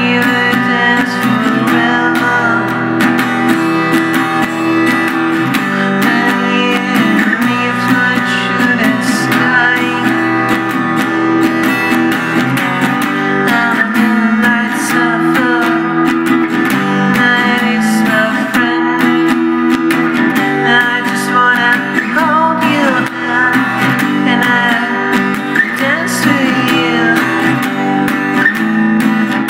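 Music soundtrack led by a strummed guitar, playing steadily throughout.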